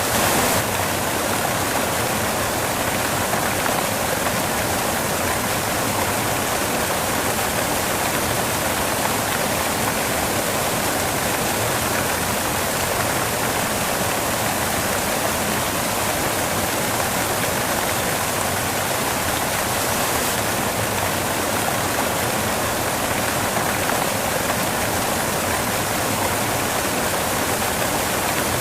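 Steady white noise: an even, unbroken rushing hiss spread across low and high pitches alike, like rushing water.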